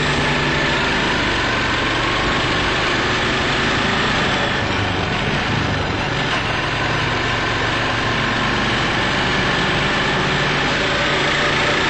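Quad bike (ATV) engine running steadily while riding along a dirt track, with a steady rushing noise over the engine.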